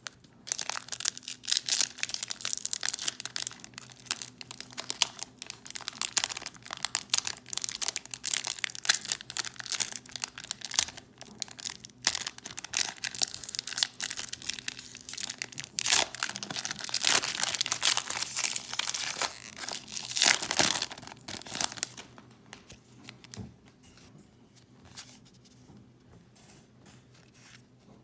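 Foil Pokémon booster pack wrapper being torn open and crinkled: a long run of crackling rustle, loudest about two-thirds of the way through, that dies down after about 22 seconds to a few faint light ticks.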